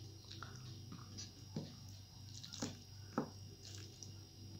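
Fingers squishing and mixing rice with crisp fried chips on a plate, with a few sharp crackles, three of them louder in the second half, over a steady low hum.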